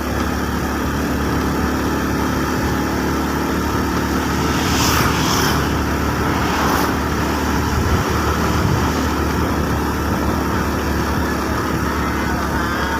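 Motor vehicle engine running steadily on the move, under continuous road noise, with brief hissing sounds about five and seven seconds in.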